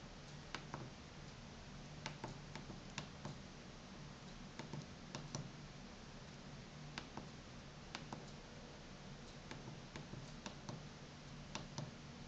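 Navigation keys of a FRITZ!Fon MT-F cordless phone handset being pressed, a string of irregular plastic clicks, some in quick pairs, over a faint low hum.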